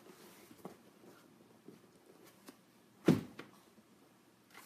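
Faint rustles and small clicks of a paper catalog's pages being handled and turned, with one sharp thump about three seconds in.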